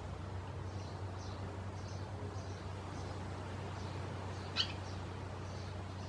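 Barn swallows chirping softly in short scattered calls, with one louder sharp call about four and a half seconds in, over a steady low hum.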